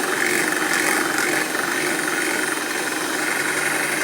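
Electric mixer running steadily, beating cake batter, with a slight regular pulsing in its whir.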